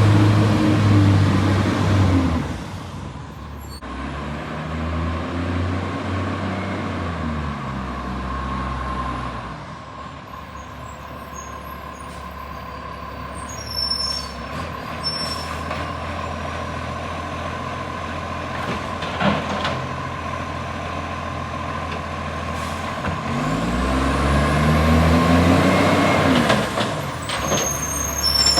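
Garbage truck diesel engine with an exhaust leak, revving up and down. It drops from high revs about two seconds in, rises and falls again, settles to a steady idle, then revs up again near the end.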